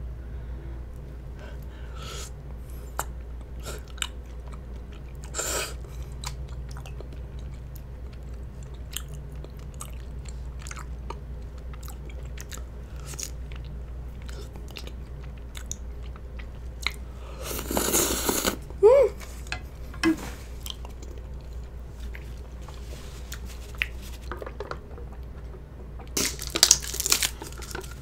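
Close-miked eating of stretchy rice cakes in spicy sauce: wet chewing with many small mouth clicks, a louder slurp about two-thirds of the way through, and a few louder noises near the end.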